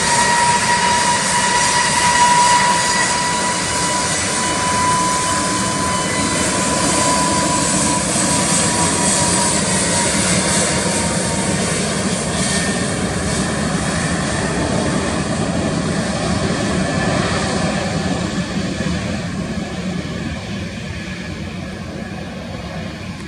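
Jet airliner's engines at takeoff power: a steady high whine over loud rushing noise, fading gradually over the last several seconds as the aircraft moves away.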